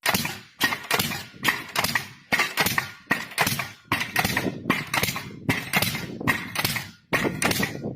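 A machine's rapid, repeated sharp strikes, about two to three a second, each clack fading quickly before the next.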